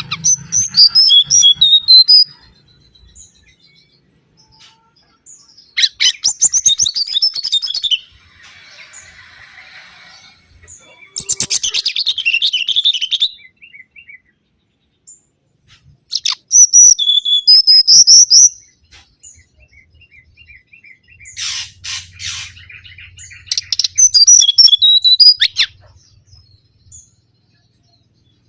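Mangrove whistler song: loud phrases of quick, high whistled and warbled notes, each lasting about two seconds and repeated about every five seconds with quiet gaps between. A little past two-thirds of the way through, one phrase is a harsh, rattling series instead.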